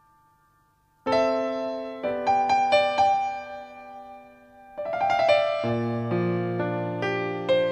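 Background solo piano music: after a near-silent first second, a gentle melody of struck notes with sustained ringing, joined by low bass notes from about five seconds in.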